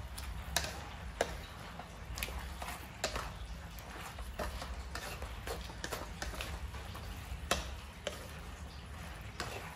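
Wooden spatula knocking and scraping against a metal wok while stir-frying vegetables and meat: irregular clicks every half second or so, over a steady low hum.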